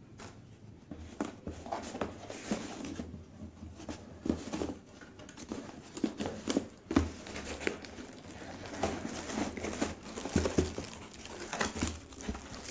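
A brown kraft-paper box being handled and opened by hand: irregular rustling, crinkling and scraping of paper and cardboard. Near the end a plastic-wrapped package crackles as it is pulled out.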